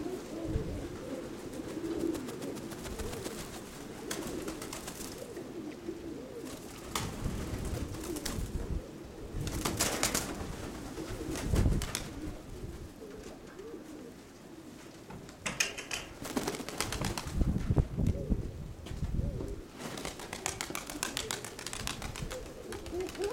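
Domestic pigeons cooing, with strong gusts of wind rumbling on the microphone, loudest about ten seconds in and again in the second half.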